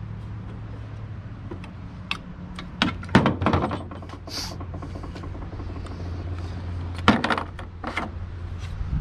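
Wooden boards and a metal clamp being handled on a work table: a few knocks and clatters, the loudest about three seconds in and again about seven seconds in, over a steady low hum.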